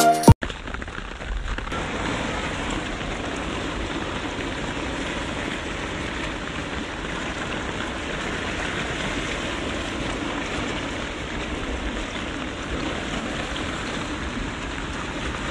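Swollen farm creek in flood after heavy typhoon rain, its fast current making a steady rushing noise.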